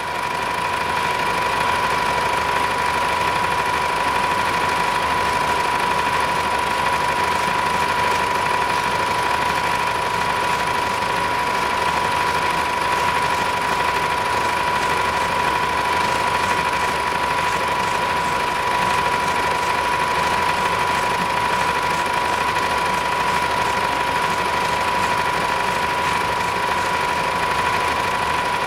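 A steady machine drone, engine-like, with a constant high whine that holds unchanged throughout.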